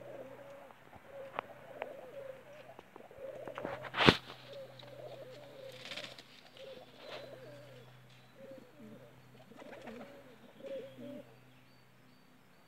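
Domestic pigeons cooing over and over, with scattered light clicks and one sharp knock about four seconds in; the cooing stops a second or so before the end.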